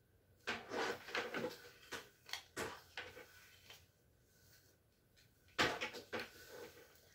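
Flat iron being handled while straightening hair: a quick string of light clacks, knocks and rustles lasting about three seconds, then another short run of them near the end.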